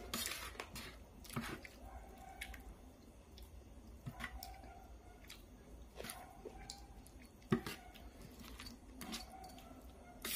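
Metal spoon scooping saucy food from a large metal tray: faint, irregular scrapes and clinks, some with a short ring of the tray, and wet chewing between them.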